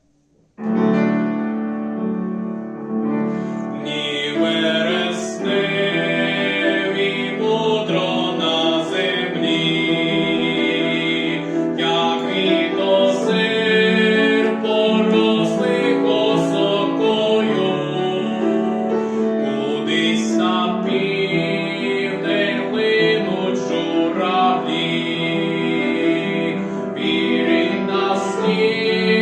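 Art song performed by a solo voice with piano accompaniment. The piano comes in about half a second in, and the voice joins a few seconds later.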